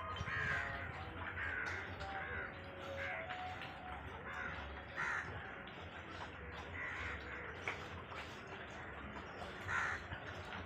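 Several short animal calls, each rising and falling in pitch, spaced a second or two apart over a faint steady background.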